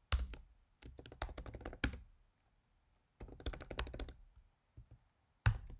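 Computer keyboard being typed on: quick runs of key clicks in about four bursts, with short pauses between them.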